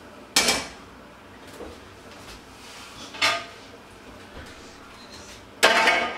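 Metal cookware and dishes clanking as they are handled. There are three separate clanks, each with a brief ring: one about half a second in, one about three seconds in, and a longer, louder one near the end.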